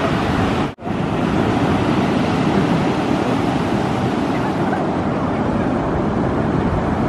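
Ocean surf breaking on a beach, a steady loud rush mixed with wind on the microphone; the sound cuts out for an instant a little under a second in.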